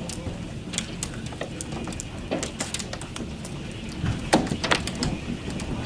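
Rainstorm with a low wind rumble and many irregular sharp taps and knocks, the loudest cluster about four to five seconds in.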